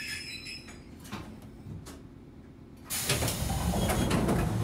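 Passenger doors of the Wakayama Electric Railway's Tama Densha train car sliding open about three seconds in, a sudden loud rush of noise from the door mechanism. Before that the stopped train is quiet apart from a couple of faint clicks.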